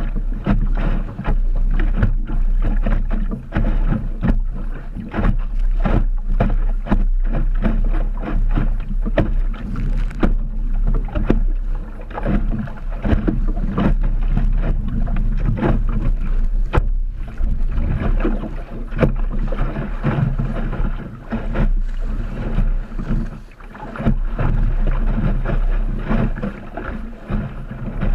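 Wind buffeting the microphone in a steady deep rumble, with water slapping and splashing against the hull of an Optimist sailing dinghy making way through choppy water.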